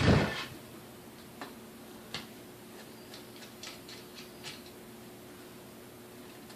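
A knock right at the start, then a few faint, sharp clicks and taps about a second or two apart: small metal parts being handled while the carbon brushes and brush springs are taken out of a KitchenAid 3C mixer's motor.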